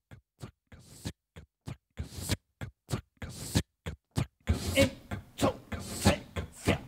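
Beatboxing into a handheld microphone: a steady beat of mouth-made kick and snare sounds, about three a second, that becomes denser and louder about two-thirds of the way through.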